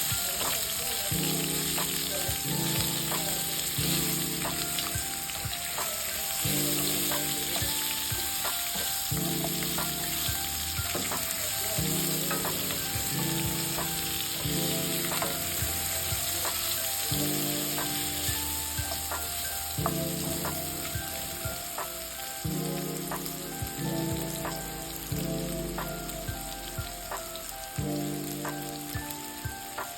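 Beef, onions and chili frying in oil in a pan: a steady sizzle, with the spatula clicking and scraping against the pan as it is stirred.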